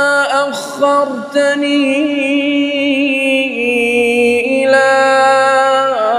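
A man's voice reciting the Quran in slow melodic tajweed chant, holding long, ornamented notes that waver in pitch, with a brief dip in loudness about a second in.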